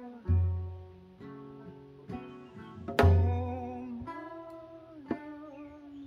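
Acoustic folk music from a banjo and an acoustic guitar picking together, with a Korean buk barrel drum giving deep beats, the loudest about a third of a second in and again about three seconds in.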